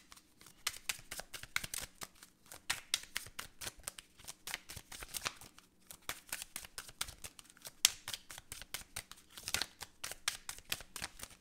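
A deck of oracle cards being shuffled by hand: a long, irregular run of quick card clicks and flutters.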